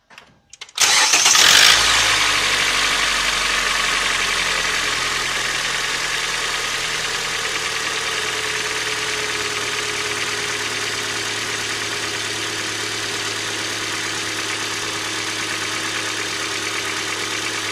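2012 Hyundai Elantra's 1.8-litre four-cylinder petrol engine cranks briefly and starts about a second in, loudest just after catching, then settles into a steady fast idle that slowly drops. It is a start after the car has stood 30–40 minutes, when the owner reports a one-off crackling knock on starting.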